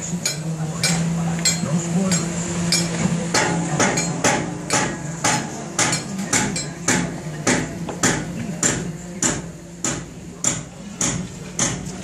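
Sharp metallic strikes with a bright ring, repeating rapidly, falling into a steady beat of about three a second after the first few seconds. A steady low machine hum runs underneath.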